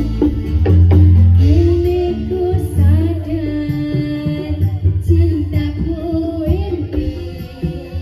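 Live jaran kepang band music played loud over a sound system: a heavy drum beat with deep bass, and a wavering sung melody that comes in about a second and a half in and fades out near the end.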